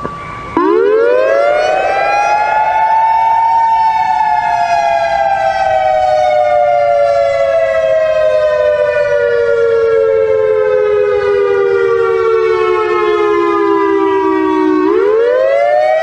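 Loud emergency-alert siren of an Ivory Coast EAS alarm. After a brief steady tone it winds up quickly, then slides slowly down in pitch over about eleven seconds, and starts winding up again near the end.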